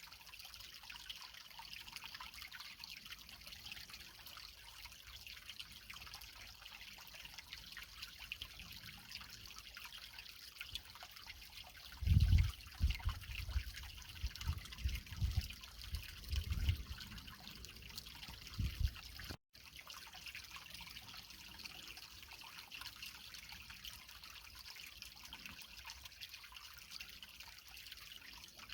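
Creek water trickling and flowing over rocks as a steady hiss. About halfway through, several seconds of low thumps come over it, the loudest thing here, and the sound cuts out for an instant just after them.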